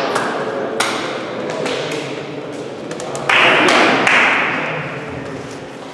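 Scattered sharp taps and thuds of table tennis play echoing in a sports hall, with a cluster of quick clicks just before three seconds. A louder noisy burst follows about three seconds in, lasts about a second and dies away.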